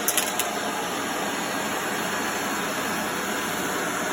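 Vacuum cleaner running steadily while sucking up spilled cat food, with a few sharp clicks at the start.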